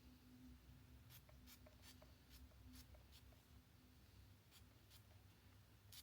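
A string of faint, quick spritzes from a pump spray bottle of hair spray (COLOR WOW Dream Coat), about ten short sprays at an uneven pace starting about a second in, over near silence.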